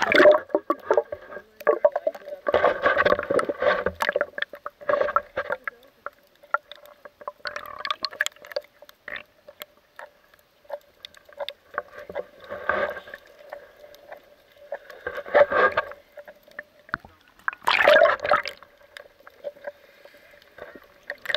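Water gurgling and sloshing around an action camera held underwater, coming in bursts every few seconds with small clicks, the loudest burst near the end. A faint steady hum runs underneath.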